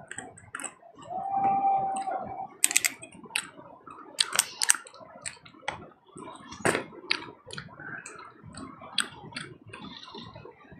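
Walnut shells being cracked and crunched: irregular sharp clicks and cracks. A brief steady tone sounds about a second in.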